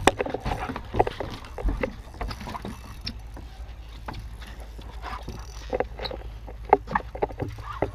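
Scattered light knocks and clicks against a boat's deck and hull over a steady low rumble, with a sharper knock right at the start.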